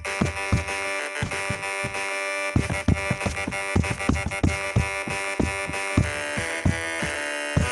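Background music: sustained synthesizer chords over a drum beat.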